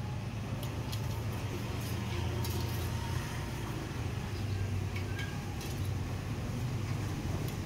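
Steady low mechanical hum, like a motor running, with a few light clinks and ticks scattered over it.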